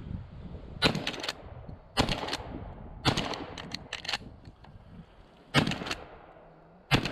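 A Winchester Model 1897 pump-action 12-gauge shotgun fires about five shots in quick succession, roughly a second apart with one longer pause. Each loud report echoes briefly and is followed by the clack of the slide being pumped.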